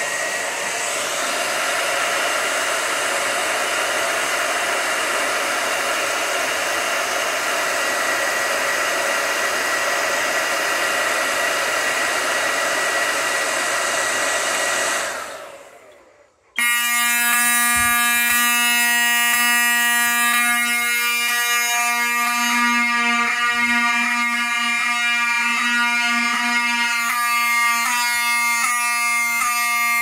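A hair dryer blowing steadily to heat a heat detector is switched off about fifteen seconds in and winds down. About a second later the detector trips and Wheelock mechanical fire-alarm horns start sounding, a loud steady buzzing horn that keeps going.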